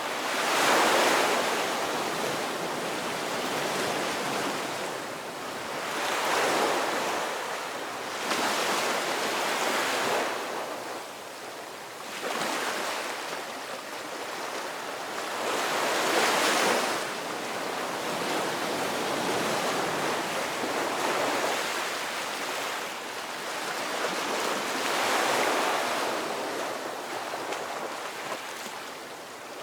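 Ocean waves surging and washing in, swelling and falling back about every four to six seconds.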